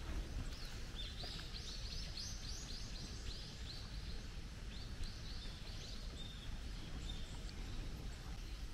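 A small bird calling in runs of short, high chirps, about four a second, with pauses between the runs, over a steady low rumble.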